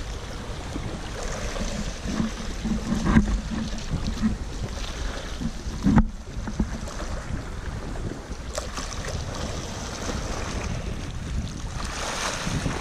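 Wind buffeting the microphone over surf washing against the rocks, with scuffing steps on loose shell grit and one sharp knock about six seconds in.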